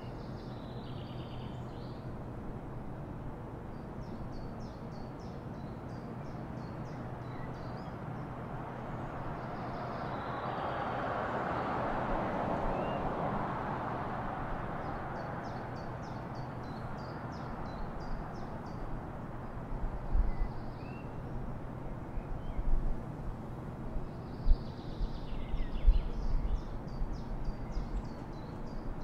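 Street ambience: a vehicle passes, its sound swelling and then fading a little before the middle. Small birds chirp in short rapid trills throughout, over a steady low hum, and there are several low thumps in the last third.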